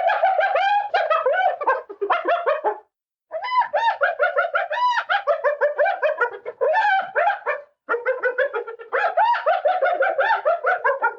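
Spotted hyena laughing: a rapid run of high, pitched giggling whoops, several a second, each rising and falling. The giggling comes in three bouts, with short breaks about three seconds and eight seconds in.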